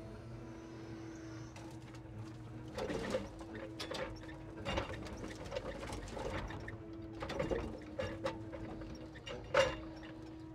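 Timber truck's loader crane setting a grappleful of logs down onto the load: a series of wooden knocks and clatter as the logs land and settle, the sharpest near the end, over a steady mechanical hum.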